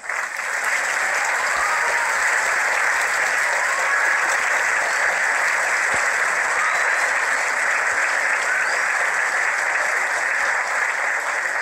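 Audience applauding; the applause breaks out as the song ends and holds steady.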